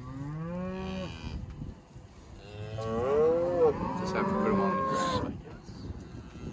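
Black Angus cows mooing: a short moo, then a second, longer and louder moo starting about two and a half seconds in.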